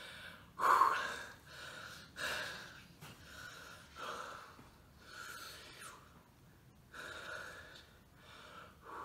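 A man breathing hard through his mouth, a breath roughly every second and a half, the one about a second in the loudest.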